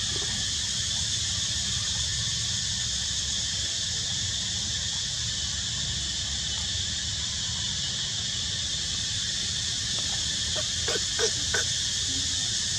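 Steady high-pitched drone of an insect chorus in the trees over a low wind rumble, with a few brief squeaks near the end.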